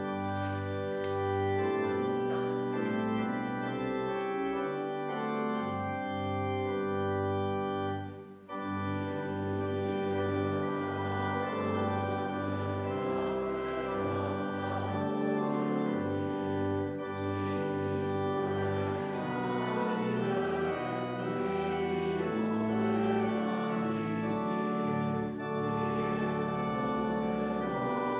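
Organ playing a hymn tune in sustained chords over a stepping bass line, with a short break between phrases about eight seconds in.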